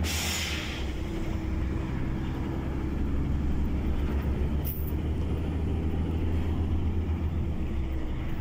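Truck engine running steadily with a low drone, heard from inside the cab. A brief hiss at the start and a single sharp click about five seconds in.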